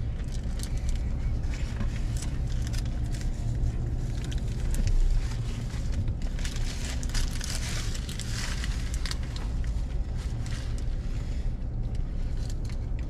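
Eating sounds in a car: chewing and the crinkle and rustle of a paper sandwich wrapper, over the steady low hum of the idling car.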